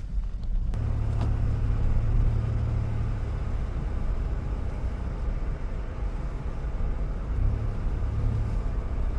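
Steady low rumble with a faint hiss above it, growing stronger about a second in and again near the end.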